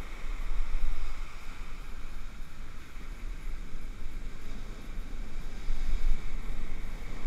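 Wind buffeting the microphone in a heavy low rumble over the hiss and wash of rough breaking surf.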